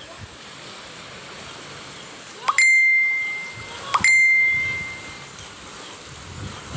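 Two identical bell dings about a second and a half apart, each a quick rising click followed by a clear ringing tone that fades over about a second. The background noise drops out under them, as with an added sound effect.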